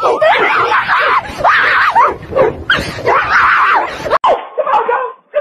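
A person screaming while fleeing a dog, with the dog barking. The sound cuts off abruptly about four seconds in, and a different voice follows.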